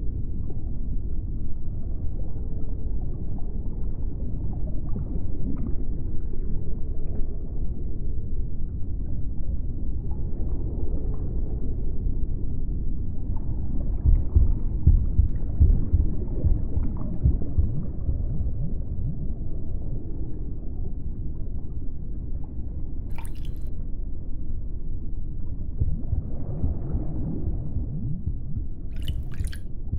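Ambient sound-design soundtrack: a deep, continuous rumble with wet squishing and gurgling textures, swelling in the middle and again near the end. A few faint, sharp clicks sound about three-quarters of the way through and twice just before the end.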